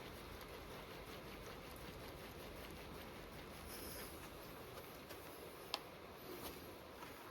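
Faint, scattered clicks and knocks from a Tesla Model 3's steering tie rods and tie rod ends, with one sharper click near the end, over a steady background hiss: the sign of worn tie rods and tie rod ends.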